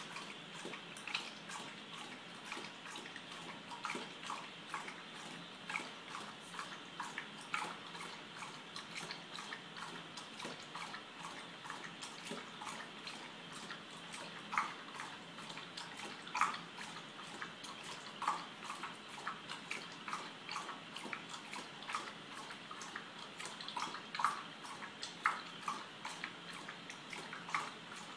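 A pit bull-type dog lapping water from a stainless steel bowl: a long, steady run of quick, wet laps and small splashes, several a second.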